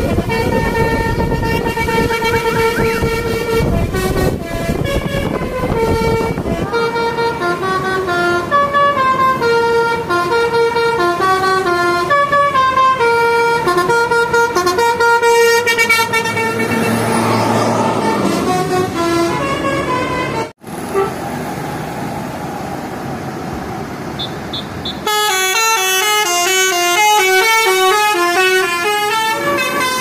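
Telolet basuri musical bus air horns playing quick tunes of short notes stepping up and down, with the bus engine loud underneath in the first few seconds. The sound drops out briefly about 20 seconds in, and another, faster horn tune starts about 25 seconds in.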